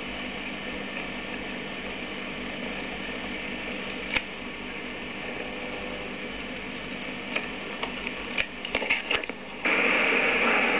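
Steady hiss and hum of an old videotape soundtrack, with scattered faint clicks from about four seconds in. About a second before the end a louder rushing noise cuts in suddenly.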